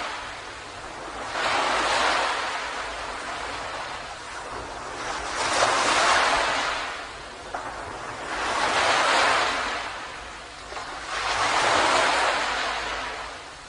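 Sea waves breaking and washing up on a beach: four swelling rushes of surf about three seconds apart, each fading before the next.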